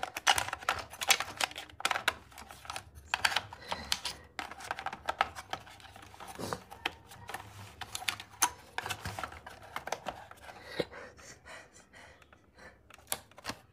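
Small plastic clicks and taps from handling a toy RC car's underside as its battery compartment cover is fitted and pressed into place. The clicks are rapid and irregular at first and thin out to a few near the end.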